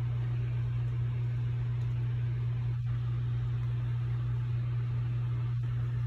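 A steady low hum, even in pitch and level.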